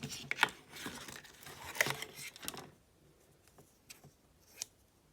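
Plastic packaging rustling and crinkling as it is handled for about two and a half seconds, then a few separate light clicks.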